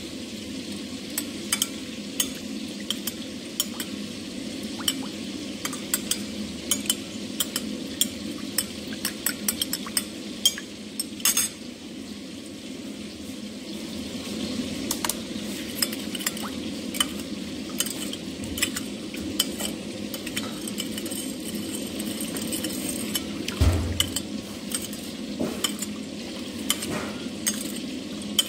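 Metal spoon stirring a vinegar-and-ketchup sauce in a cut-glass bowl, clinking against the glass again and again at an uneven pace. A dull thud comes a few seconds before the end.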